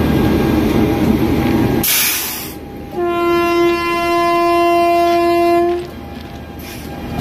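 A train horn sounding one long steady note about three seconds in, held for nearly three seconds. Before it, the steady rumble of a train on the next track, cut by a brief loud burst of noise.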